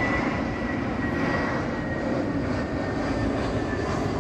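Steady rumbling roar with a faint high whine that drifts slowly down in pitch.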